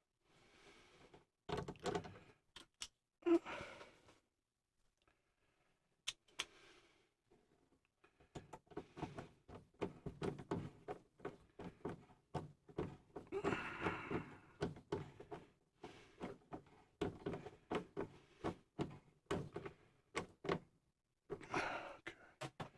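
Hands working on furnace parts and wiring: irregular knocks, clicks and rattles. There are a few scattered knocks in the first seconds, then a busy stretch of clicking and rattling through most of the second half.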